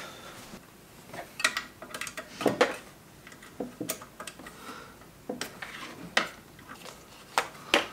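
Irregular light clicks and clinks of metal tools and small parts being handled while a car cassette player is taken apart, about eight sharp knocks spread across a few seconds.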